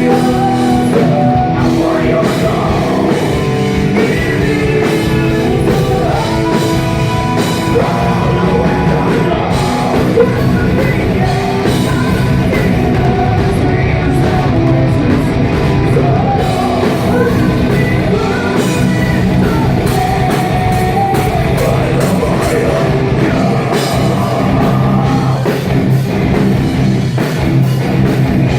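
Live metal band playing loud, with drums, distorted guitars and singing, distorted through a phone microphone that cannot handle the volume.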